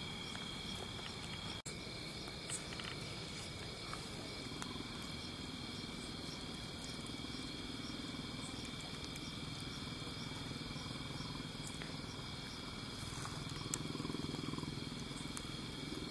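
Night insects chirping steadily, a constant high-pitched trill, with a faint low rumble rising near the end.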